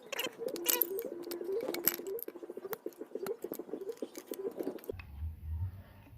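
Small sharp metal clicks and scrapes of a flat-blade screwdriver prying the little retaining pin out of a motorcycle front fork.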